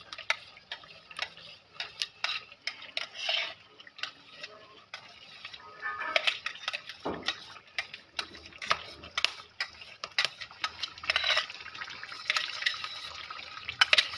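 Repeated metallic taps and clinks of a steel mixer-grinder jar being knocked to empty tomato paste into an aluminium cooking pan, with the soft slop of the paste falling in.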